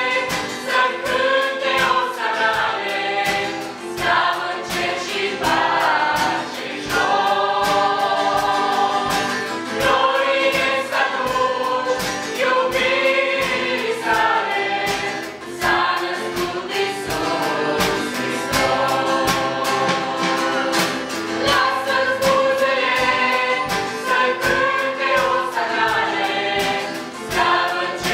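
Mixed choir of men's and women's voices singing a song in harmony, accompanied by a steadily strummed acoustic guitar.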